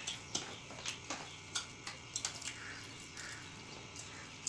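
Eating by hand: fingers mixing rice and curry on metal plates, with chewing and mouth sounds, heard as irregular small clicks and smacks.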